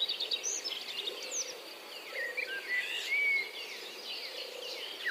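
Small birds chirping and twittering in many short, quick calls, over a faint steady insect buzz.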